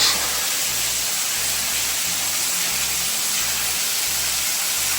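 Small wet-weather waterfall pouring off a sandstone cliff line, a steady splash and hiss of falling water.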